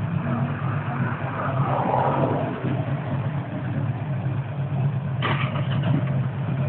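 Buell XB12 motorcycle's air-cooled V-twin engine idling steadily, with a short sharp noise about five seconds in.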